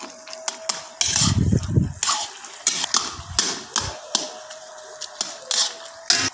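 Metal spatula scraping and clinking against the inside of an iron karahi as thick jaggery-semolina halwa is stirred and turned, with a low rumble for about a second near the start.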